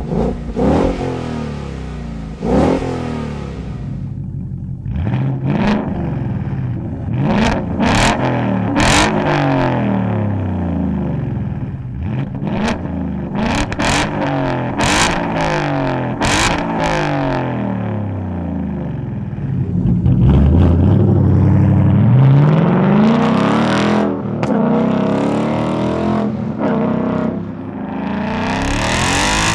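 2015 Mustang GT's 5.0-litre Coyote V8 through a Flowmaster Outlaw catback exhaust with the factory resonator deleted, giving an aggressive exhaust note. It is revved again and again, the pitch climbing and falling with each blip. About twenty seconds in comes one long rising rev.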